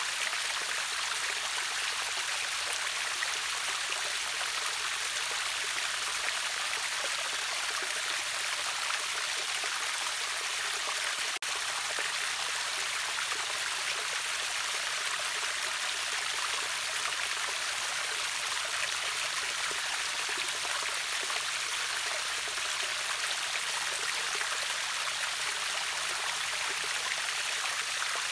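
River water rushing over a waterfall: a steady, bright rushing hiss with no change, broken only by a momentary dip about eleven seconds in.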